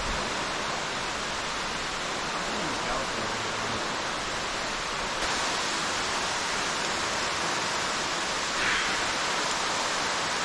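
Steady rush of falling water from an underground cave waterfall, a little louder from about five seconds in.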